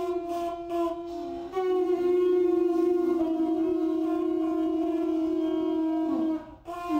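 Several conch shell trumpets blowing held tones close together in pitch, overlapping. About a second and a half in a louder sustained note enters and holds until near the end, where the sound briefly drops before the shells sound again.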